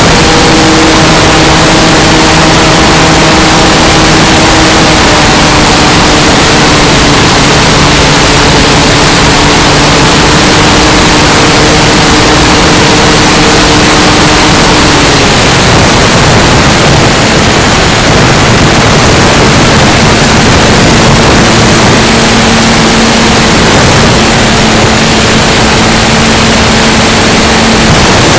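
Onboard sound of the E-flite Carbon-Z Cessna 150's electric motor and propeller in flight, heard under heavy wind rush on the plane-mounted camera. The motor's steady tone drops to a lower pitch about halfway through as the throttle comes back.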